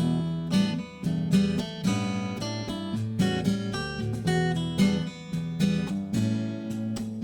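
Background music of an acoustic guitar strumming chords in a steady rhythm.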